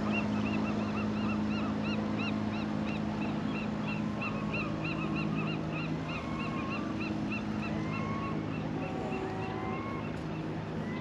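Birds calling: a rapid series of short, repeated calls, about three a second, that give way about halfway through to slower, rising drawn-out calls. Under them runs the steady low hum of a motorboat engine, which fades near the end.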